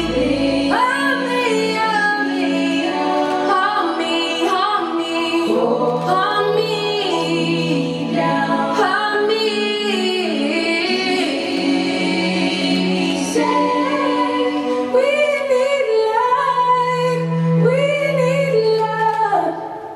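A song with a woman singing a wavering melody with vibrato over long held low notes.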